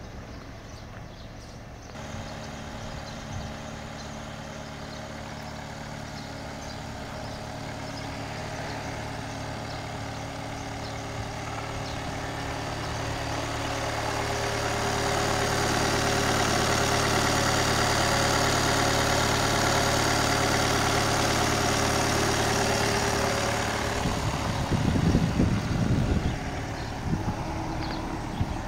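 Volkswagen Crafter 2.0 TDI four-cylinder diesel idling steadily, louder in the middle where it is heard close to the open engine bay. A few irregular low buffeting bumps near the end.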